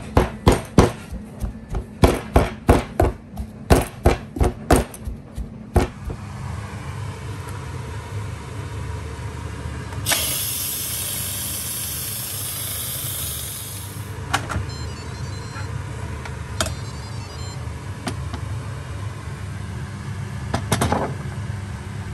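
A run of sharp knocks, about two a second for six seconds, as a hand masher strikes a steel bowl of mashed potato and fish. About ten seconds in, an electric pressure cooker's steam release valve hisses loudly for about four seconds, over a steady low hum.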